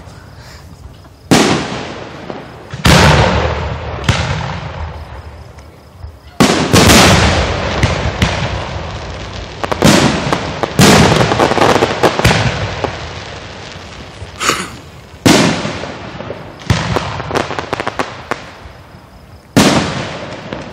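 Aerial fireworks shells bursting at close range: about a dozen loud booms, one every second or two, each fading away over a second or so.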